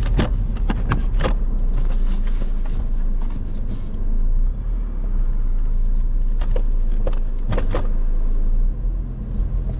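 Car running with a steady deep rumble. There are several sharp clicks in the first second or so and a few more about two-thirds of the way in.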